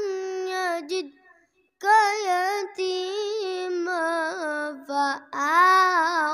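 A boy reciting the Quran in a melodic, drawn-out chant into a microphone, holding long ornamented notes, with a breath pause about a second in and a shorter one near the fifth second.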